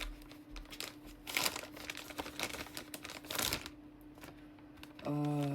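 Blind-box packaging being crinkled and torn open by hand: a run of irregular crackling rustles that dies down after about three and a half seconds. Near the end a steady held pitched tone begins.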